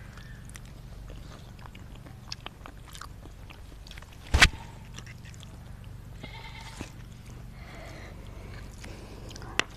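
People eating Maggi instant noodles with their hands: soft chewing and small clicks over a steady low hum. A loud sharp knock comes about four and a half seconds in, and a short high-pitched call about six seconds in.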